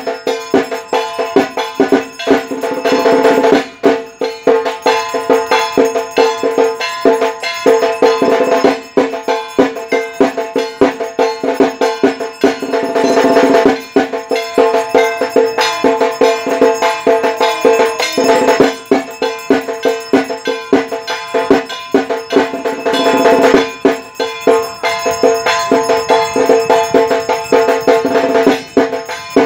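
Background music with a fast, busy percussion beat over sustained steady tones.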